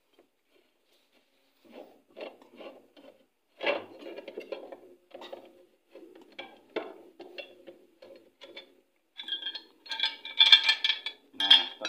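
Open-end wrench working the bolts on a washing machine's cover: irregular metal clicks and rattles, turning into louder metallic clinks with a ringing tone near the end.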